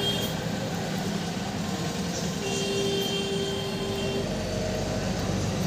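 Steady background hum and rumble of machinery, with one held tone for about two seconds midway; no distinct knocks or handling sounds.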